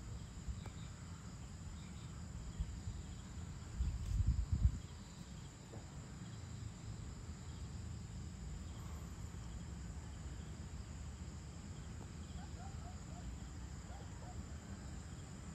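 Steady high trilling of insects at dusk over a low, unsteady rumble, which swells briefly about four seconds in.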